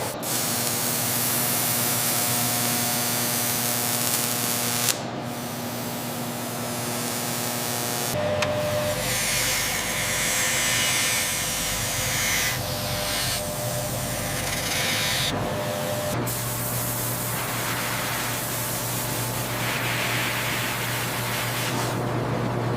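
Steady hissing machine noise over a low hum, changing abruptly about 5, 8 and 16 seconds in.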